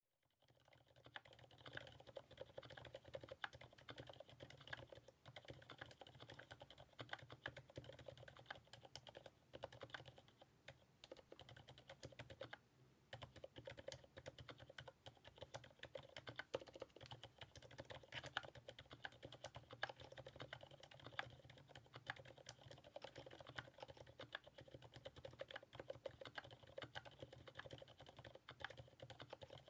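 Typing on a TX Keyboard HJ75 mechanical keyboard with Krytox 105-lubed Cherry MX Silent Black switches and GMK keycaps: a quiet, continuous, irregular run of keystrokes, with a brief pause a little past halfway.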